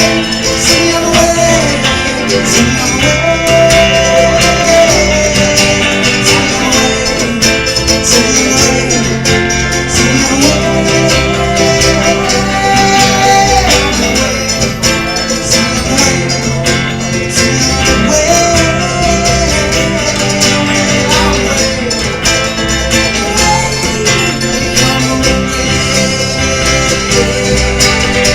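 A live band playing a country or bluegrass-style tune: guitar under a melody line.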